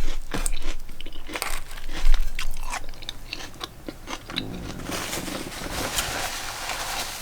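Biting and chewing a lettuce wrap stuffed with chicken, black beans, rice and avocado: crisp lettuce crunching in a string of sharp crackles over the first few seconds, then quieter chewing.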